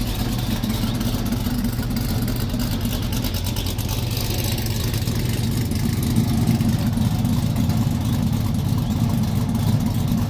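Engine fitted with a Tomahawk aftermarket camshaft idling steadily, with a constant hiss of running water over it. It gets a little louder about six seconds in.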